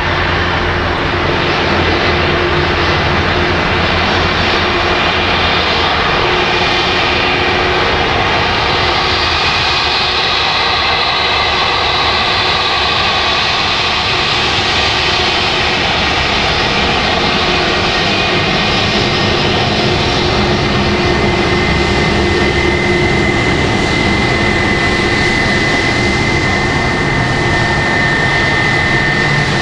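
Airbus A321's twin jet engines running at low taxi power as the airliner taxis past after landing: a steady rushing roar with a high whine. The whine grows clearer in the second half.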